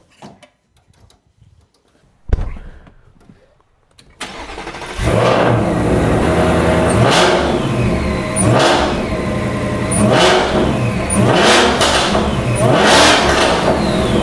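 A thump about two seconds in, then the Shelby Super Snake's Whipple-supercharged V8 starts about four seconds in and settles into a loud idle. It is blipped five times, each rev rising and falling with the supercharger's whine. The engine has a freshly fitted carbon-fibre intake and larger air filter boxes.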